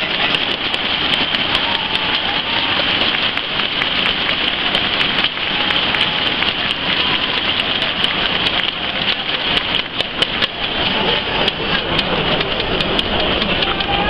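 Steady crowd noise from a large stadium audience: a dense pattering of many people clapping and cheering, with scattered sharp clicks.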